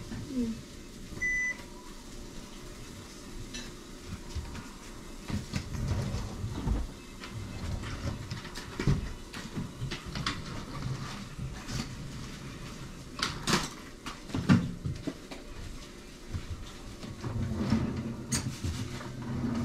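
Scattered knocks and clatter of household handling, like dishes and cupboards being moved, with a short electronic beep a little over a second in.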